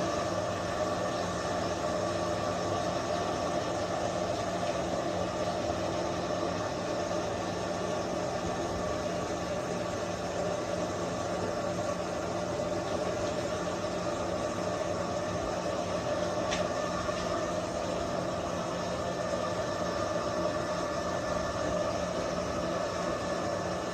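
Handheld electric hair dryer running steadily, a constant rush of blown air over a low motor hum.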